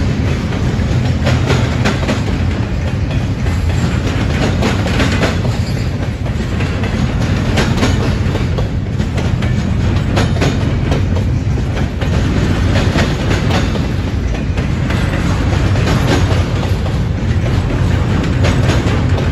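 Double-stack intermodal container train rolling past with a steady, loud rumble. Its steel wheels click repeatedly as the well cars pass.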